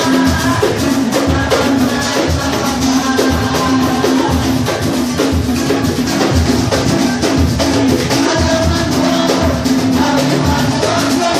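Batucada samba percussion group playing live: many drums and percussion instruments beating out a dense, steady samba rhythm.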